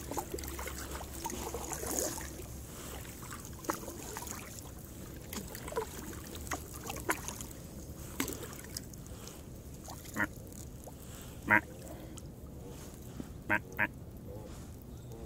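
Kayak paddle dipping and splashing in the first couple of seconds, then a Canada goose honking: a few short honks from about ten seconds in, coming quicker near the end.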